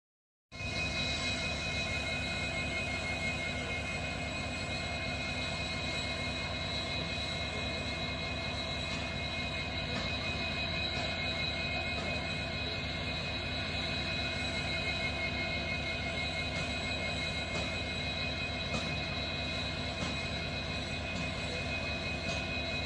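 WDG-4 diesel locomotive's EMD 16-cylinder two-stroke 710 engine idling while standing: a steady low hum with constant high-pitched whines over it.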